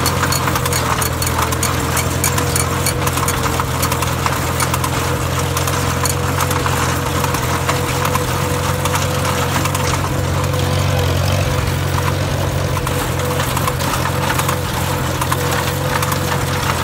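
Farmall Super C tractor's four-cylinder engine running steadily under load in second gear, pulling a ground-driven manure spreader, with a thin steady whine over it. Dense clicking and clattering from the spreader's apron chain and beaters throwing manure runs through it.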